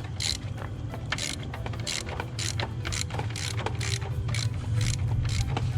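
Large 3/8-drive socket ratchet clicking in repeated strokes, about two a second, as 15mm caliper bracket bolts are loosened on an ATV's front brake. A steady low hum runs underneath.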